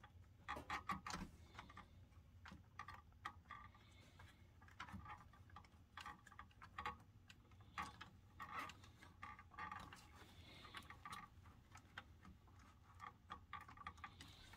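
Faint, irregular small clicks and taps of plastic and circuit board being handled as the tray-switch board is worked back into the clips of a Kenwood DP-860 CD player's loading mechanism.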